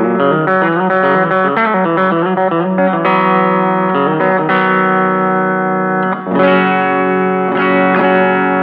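Headless EART electric guitar played clean on the bridge pickup at full tone and volume, through a Fender Rumble 15 amp fitted with a guitar speaker, with a little reverb and delay. A run of notes and chords, with a chord left ringing about halfway through and a new strum just after six seconds.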